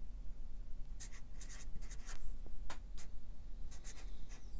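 Marker pen writing letters on a board: a run of short, scratchy strokes starting about a second in.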